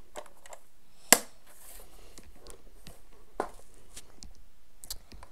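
A hard plastic case being handled and turned over: scattered light knocks and clicks, with one sharp, loud click about a second in.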